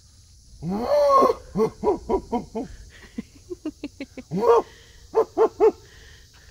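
A man imitating a howler monkey's call with his hands cupped at his mouth. A long rising-and-falling whoop comes about half a second in, then a rapid run of short barking grunts. Another long whoop follows around four and a half seconds in, then three quick ones near the end.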